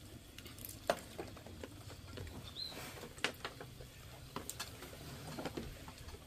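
Faint scattered clicks and taps of eating and drinking: a plastic straw pushed into a sealed plastic cup of water and sipped from. A short high chirp sounds near the middle.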